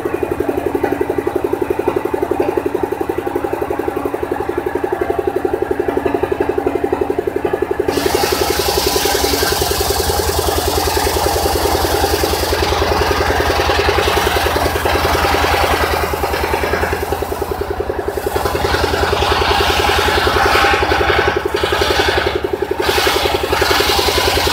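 Engine-driven circular saw of a mobile sawmill running steadily; about eight seconds in the blade bites into a log and a loud ripping cut rises over the engine hum, wavering as the log is pushed through.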